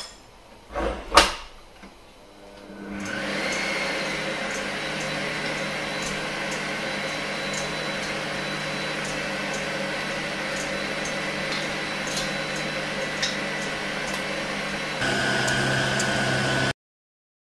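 A few knocks, then an electric stand mixer starts about three seconds in and runs steadily, its wire whisk beating egg whites and sugar into meringue with a constant hum and a high whine. Near the end the motor sound gets louder and lower, then cuts off suddenly.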